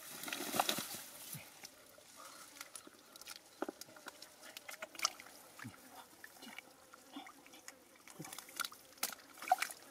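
Gloved hands squelching and sloshing through thick wet mud, with irregular short wet smacks and clicks.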